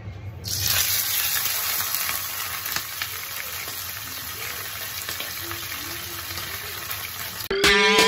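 Butterflied daing na bangus (marinated milkfish) frying in hot oil in a stainless steel pan: it sizzles loudly as it is laid in, then settles to a steady sizzle. Music cuts in near the end.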